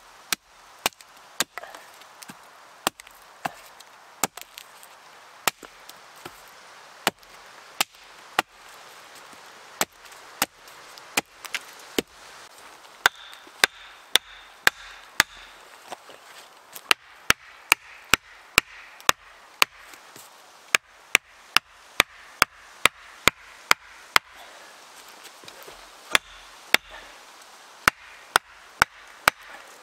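Axe chopping wood: a long series of sharp single strikes, uneven in pace, coming faster, about two or three a second, in runs after the middle and near the end.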